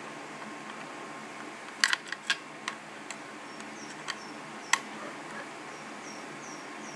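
Small sharp clicks and taps of a screwdriver working the screws of an Xbox 360 controller's plastic shell: a quick cluster of four or five about two seconds in, then two single clicks later. A few faint, short high squeaks follow in the second half.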